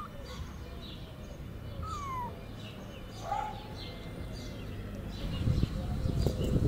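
A young kitten mewing a few times, short high cries that fall in pitch. A low rumbling noise builds near the end.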